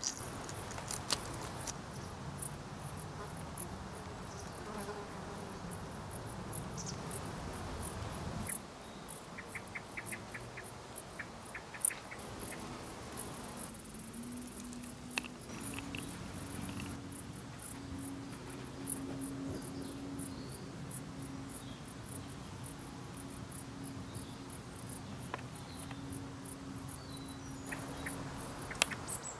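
Dark bush cricket stridulating: brief, high-pitched chirps repeated at irregular intervals.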